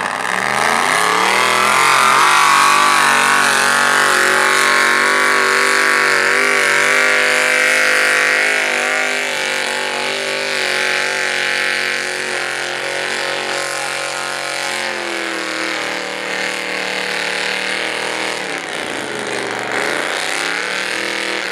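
Lifted pickup truck's engine revving hard as it launches and runs flat out through the mud pit. The engine pitch climbs in the first couple of seconds, holds high, eases down about two-thirds of the way through, then dips and revs back up near the end.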